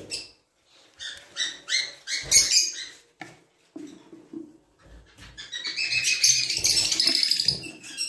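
Rosy-faced lovebirds calling: a run of short, high chirps, then a dense, high-pitched chatter in the last two or three seconds.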